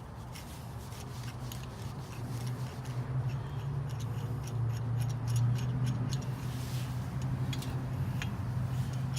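Light, irregular metallic clicks and taps as a brake-caliper piston compressor tool and brake pad are fitted against the caliper, over a steady low hum. The clicks come thicker from about a third of the way in.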